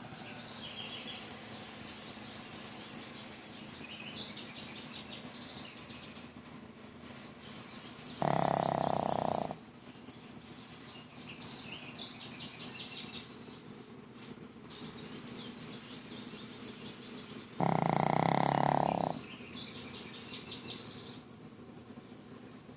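Sleeping pug snoring: two loud, drawn-out snores, one about eight seconds in and one about eighteen seconds in, each lasting about a second and a half. Between them come faint, high chirping squeaks.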